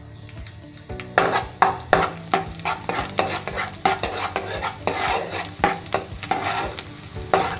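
A metal ladle scraping and clinking around a metal kadai, starting about a second in, as it stirs chopped ginger and garlic that sizzle in hot oil.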